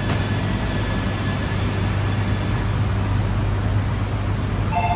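E3 series 2000 Shinkansen train running slowly past a station platform: a steady low rumble from the passing cars. Just before the end a steady two-note electronic tone starts.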